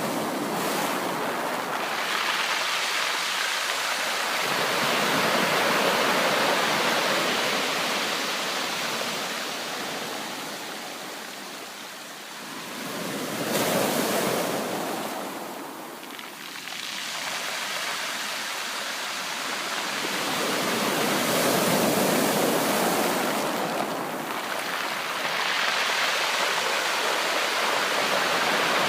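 Ocean surf: waves breaking and washing in continuously, the rush of water swelling and ebbing in slow surges every several seconds.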